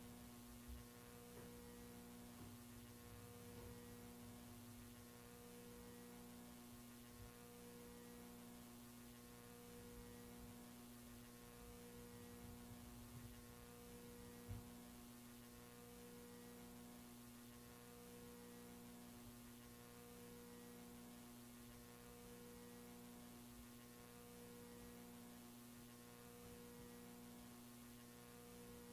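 Near silence with a faint, steady electrical hum. A faint tone within it pulses on and off about every two seconds.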